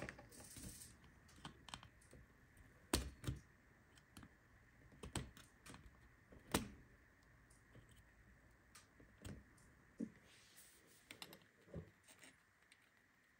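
Faint, scattered clicks and taps, about a dozen spread irregularly, the clearest about three seconds and six and a half seconds in, from handling a circuit board and a soldering iron while desoldering pins. Otherwise near silence.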